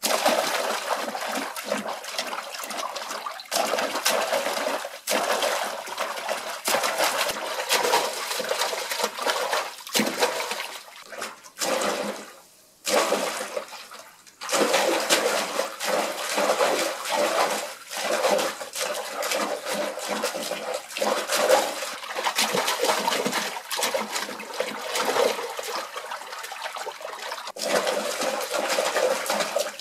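Foley water splashing: hands churning and slapping water in fast, irregular strokes, performed as wildebeest leaping and plunging through water. It breaks off briefly about twelve seconds in.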